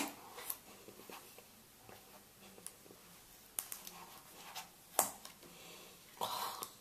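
Hands handling a coated-cardboard phone box and tray: a few faint clicks and taps, the sharpest about five seconds in, and a short scrape near the end as the phone is pulled up out of its tray by the pull tab.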